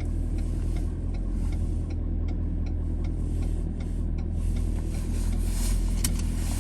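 Car running, heard from inside the cabin: a steady low engine and road hum with a light regular ticking over it.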